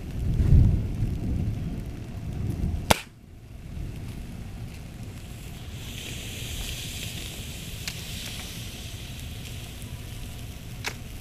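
Punctured, puffed LiPo battery pack venting smoke: a low rumble for the first three seconds, a sharp crack about three seconds in, then a steady hiss in the middle, with two more sharp cracks later.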